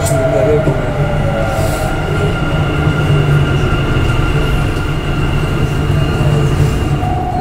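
Dubai Metro train running as it pulls out of a station, heard from inside the car: a steady rumble of wheels on rail under the steady whine of its electric drive. Near the start one whine falls slowly in pitch, and near the end another steady whine comes in.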